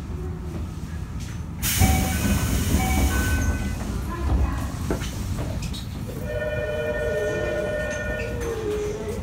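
Inside a Toei 5300 series subway car with a Mitsubishi GTO-VVVF inverter: a loud hiss of air about two seconds in. Then, about six seconds in, the inverter's steady multi-tone whine starts as the traction motors take power and the train pulls away from the station.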